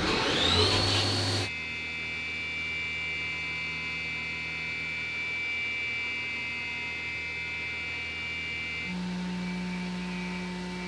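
CNC milling machine spindle spinning up in a rising whine, then a steady high-pitched whine with a low hum as an end mill rough-cuts the centre of an aluminium block under flood coolant. About nine seconds in the high whine drops away and a lower steady hum takes over.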